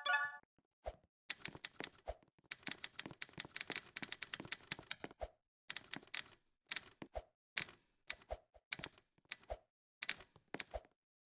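Typewriter keys striking: a fast, dense run of keystrokes over the first few seconds, then slower, uneven clusters of strikes, several ending in a heavier thump.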